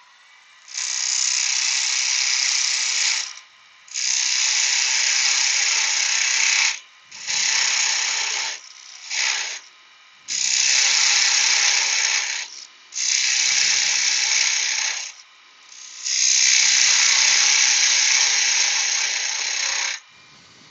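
A turning tool cutting the foot off a spalted beech box spinning on a wood lathe, in seven separate passes. Each pass is a rough, scraping shaving noise lasting from half a second to about four seconds, with short pauses between them.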